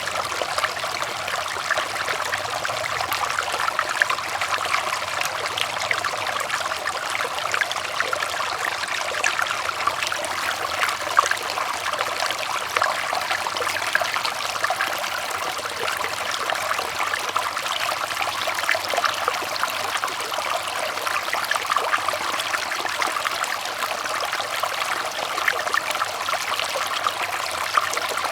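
River water flowing over rocks: a steady rushing babble with many small splashes and trickles.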